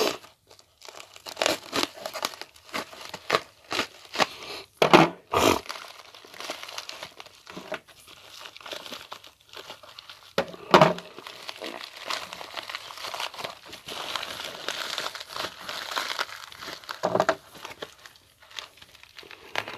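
Cardboard shipping box being opened with a Benchmade pocket knife: packing tape being slit and torn and the packaging crinkling, with sharp rips scattered throughout and a steadier rustle in the second half.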